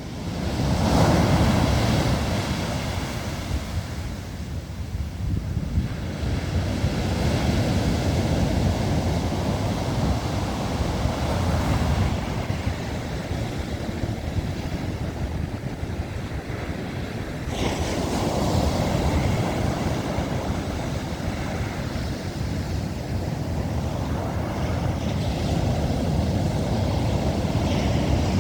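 Sea waves breaking and washing ashore, swelling louder several times, with wind buffeting the microphone.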